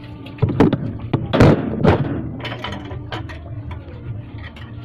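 Several loud thuds and knocks between about half a second and two seconds in, followed by lighter clicks and knocks, as hard household objects are handled and set down.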